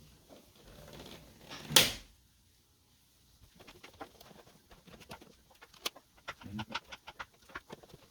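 Plastic switch wall plate being fitted over a dimmer: one sharp click near two seconds in, then after a short pause a string of light clicks and taps from handling the plate.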